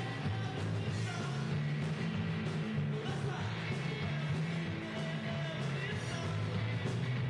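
A rock band playing live: bass guitar, electric guitars and drums in a heavy, steady groove, with some singing.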